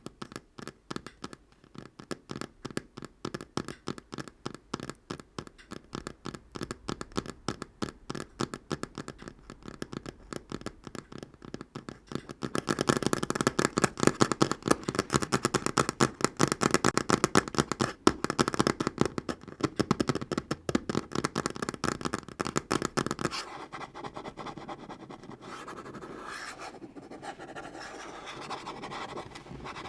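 Natural fingernails tapping rapidly on a tabletop in a fast, even patter. About twelve seconds in it turns louder and denser, then eases to a softer, smoother texture for the last several seconds.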